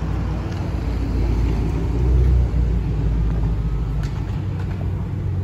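Sports car engines idling in a queue: a low, steady rumble that swells about two seconds in and then drops back.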